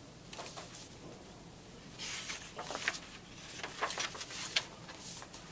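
Pages of a paperback-sized picture book being opened and turned by hand: a few short papery rustles and swishes, mostly in the second half.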